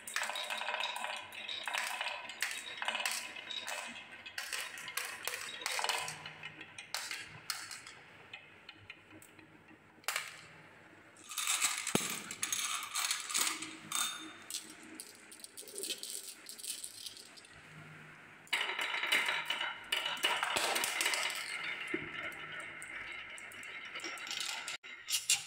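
Marbles rolling and clattering down a wooden marble run's wavy grooved tracks, a run of quick clicks and clacks as they bump over the waves and knock into each other, with denser stretches of rolling rattle partway through and near the end.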